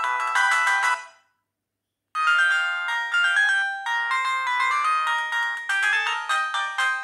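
Benq-Siemens A38 mobile phone playing its built-in ringtones through its small loudspeaker: one melody cuts off about a second in, and after a second of silence the next ringtone starts, a quick tune of many short, bright notes sounding several at a time.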